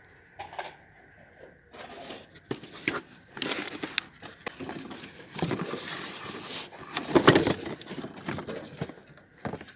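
Packaging being handled while unboxing: irregular crinkling and rustling with scattered knocks, loudest about seven seconds in.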